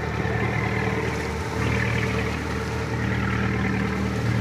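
Motorboat engine running steadily at an even speed as the boat cruises, with the hiss of water and wind over it.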